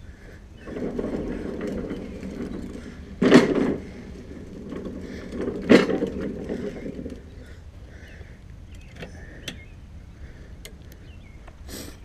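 Craftsman 6.0 hp walk-behind mower's small engine being started on choke. It runs for a few seconds, with two sharp loud bangs, then dies away about seven seconds in.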